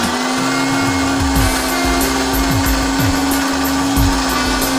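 Electric mixer grinder motor running at full speed with a steady whine, grinding peanuts in its steel jar into peanut butter.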